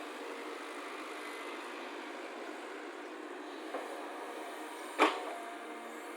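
Excavator engine running steadily, with a sharp knock about five seconds in and a fainter one shortly before.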